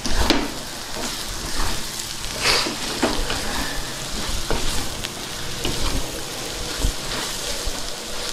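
Prawn and egg stir-fry sizzling in hot oil in a pan, with a spatula stirring it and scraping the pan in irregular strokes; the loudest stroke comes right at the start.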